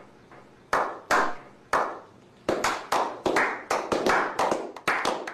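Slow clap: a small group of people clapping, single claps about half a second apart at first, speeding up to several claps a second, each with a short echo.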